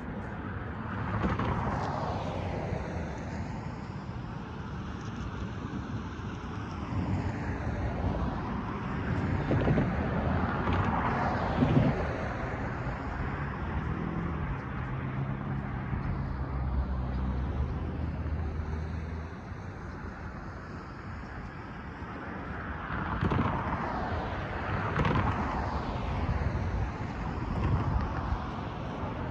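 Several cars driving past one after another on the road over the railroad crossing. Each one is a swelling and fading rush of tyre and engine noise, with a low engine hum in the middle stretch.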